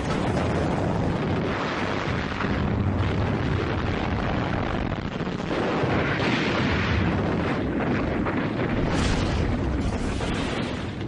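Continuous rumble of a tank battle: tank engines and tracks with dull explosions, swelling louder about two, six and nine seconds in.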